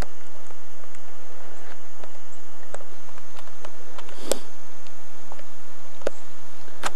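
Footsteps on leaf litter and twigs on a forest floor, a scatter of light crunches with a sharper click about four seconds in.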